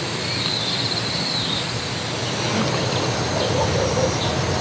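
Outdoor countryside ambience at dusk: insects keep up a steady, thin, high-pitched drone while birds chirp now and then, over a steady low background rumble.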